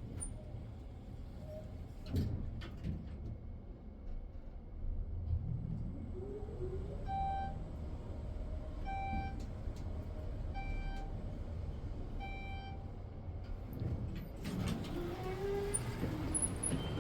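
Elevator cab travelling down with a steady low rumble. A short electronic chime sounds four times, about two seconds apart, midway through, and the doors slide open near the end.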